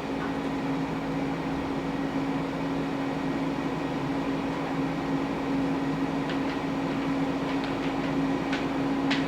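Steady machine hum of operating-room equipment, with a low steady tone and a few faint clicks near the end.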